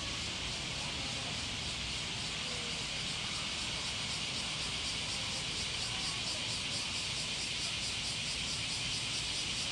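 Cicadas droning in a dense, steady chorus: a high hiss with a faint regular pulsing that grows clearer in the second half, over a low background rumble.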